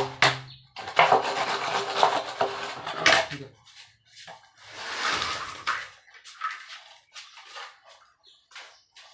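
Wet concrete being scraped and sloshed as a floor slab is levelled with a straightedge and a long pole: irregular scrapes and splashes, some short and some drawn out.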